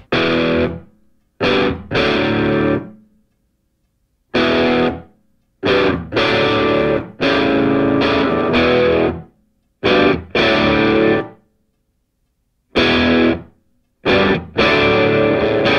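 Background music: distorted electric guitar playing chords in short stop-start blasts, with gaps of silence between them.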